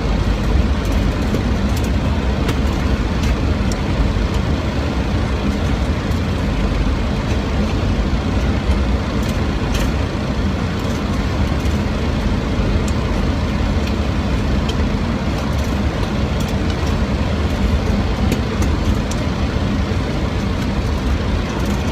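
Steady roar of airflow and jet engines inside a Boeing 737 on final approach in strong wind, with a few faint ticks.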